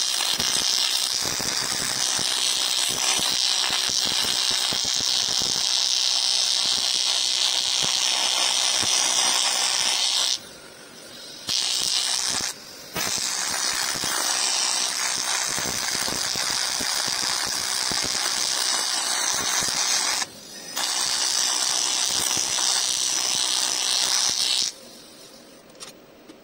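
TIG welding arc on an aluminium scooter crankcase, welding up the broken gearbox bearing housing: a steady hiss that drops out briefly three times as the arc is broken and restruck, then cuts off about two seconds before the end.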